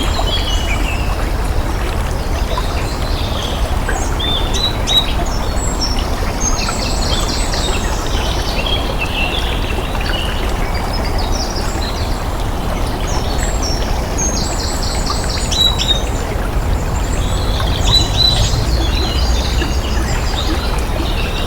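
Running water flowing steadily, with small birds chirping over it throughout, including quick rapid trills now and then.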